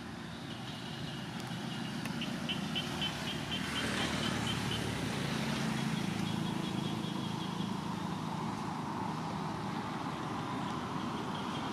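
A motor vehicle engine running steadily, a low hum that grows a little stronger about five seconds in. Runs of high, rapid chirps sound over it between two and four seconds in and again near the end.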